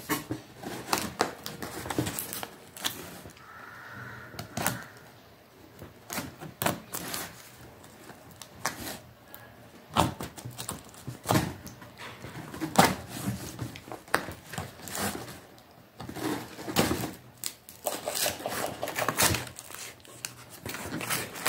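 Small scissors cutting and scraping through plastic packing tape on a cardboard shipping box, with irregular sharp clicks and the cardboard being handled.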